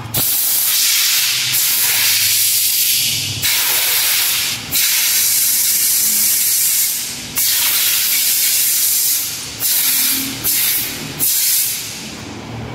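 Compressed-air blow gun hissing in a series of abrupt trigger bursts, some a couple of seconds long and a few short ones near the end, blowing sand and grit off pressure-washer pump parts.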